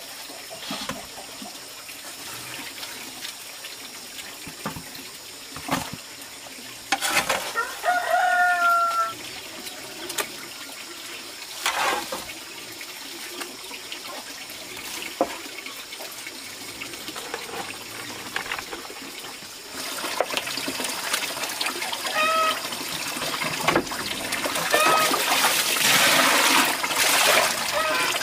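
A rooster crows once about a quarter of the way in, and chickens cluck briefly later on. Scattered knocks come from the feed being worked. From about two-thirds of the way in, water splashes in a metal pot of animal feed mash, growing louder toward the end.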